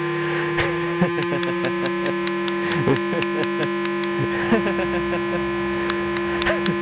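Electronic synthesizer music: a steady held drone with sharp clicks and short warbling pitch glides scattered through it.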